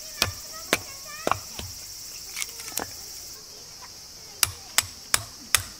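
Insects chirring in a steady high drone, with sharp knocks that become a quick regular run of about two or three a second near the end.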